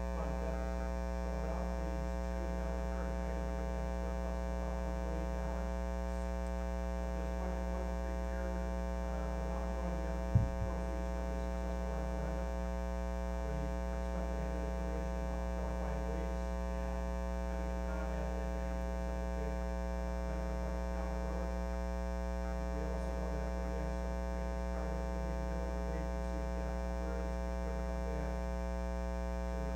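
Steady electrical mains hum and buzz with many even overtones, over which a faint, indistinct voice can just be made out. A single sharp knock about ten seconds in.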